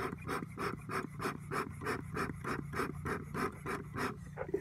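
Bee smoker bellows being pumped quickly, about four puffs of air a second, stopping near the end. The puffs force air into the smouldering paper and straw to keep the flame going while the smoker is lit.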